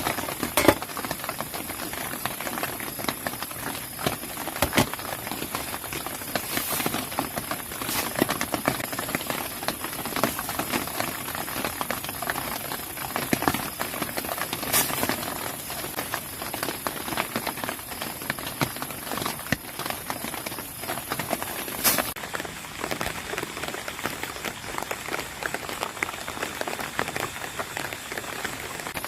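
Rain falling steadily, a constant patter with scattered louder drops or taps.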